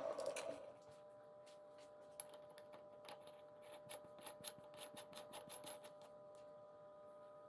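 A metal lathe winding down after being switched off, fading out within the first second. Then a faint, irregular run of light clicks and ticks for a few seconds over a low steady hum.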